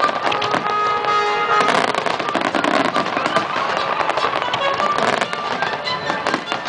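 Fireworks display: a dense run of bangs and crackling, with music playing underneath.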